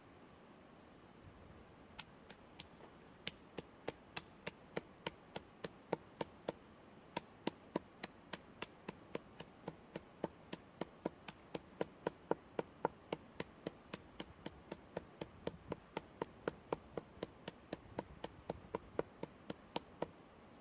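A steady run of sharp taps or knocks, about three a second, starting about two seconds in and keeping an even rhythm throughout.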